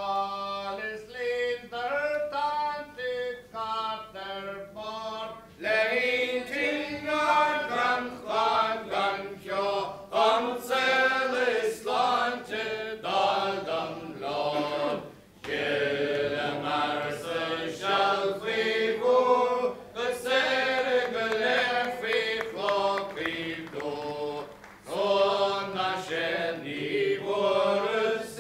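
Singing voices: one voice at first, the sound growing fuller and brighter about six seconds in.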